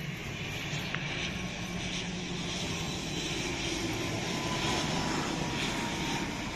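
Air Astra ATR twin-turboprop airliner on short final for landing, its engines and propellers running steadily and growing louder as it passes low overhead, loudest about five seconds in. A faint thin whine rides on top for a few seconds in the middle.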